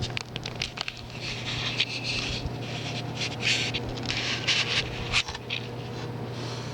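A steady low hum, the unexplained night-time drone the recordist likens to a large ship coming in from sea, with scattered clicks and short bursts of rustling over it.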